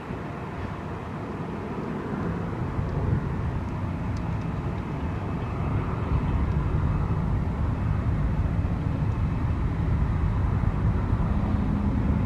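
Jet airliner engines running, a steady noise that grows louder over the first half and then holds, with a faint steady whine.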